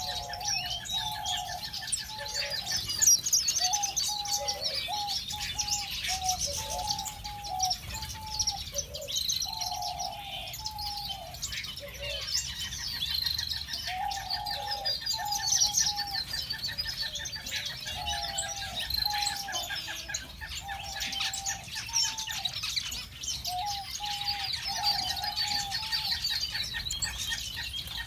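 A flock of small aviary finches calling together: a steady chatter of short, repeated nasal call notes over continuous high twittering, with a fast, even trill coming and going.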